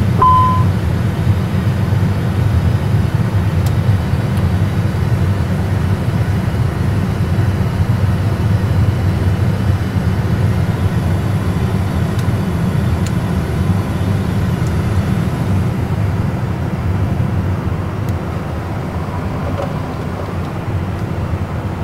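Steady low rumble of an Airbus A320 flight simulator's cockpit ambience, parked with the engines shut down and the APU running, with a short electronic beep about half a second in.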